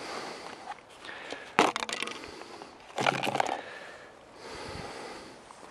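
Broken parts and canopy of a crashed HK450 RC helicopter knocking and scraping on a wooden table as they are handled and set down, in two short bursts of clatter about a second and a half in and about three seconds in.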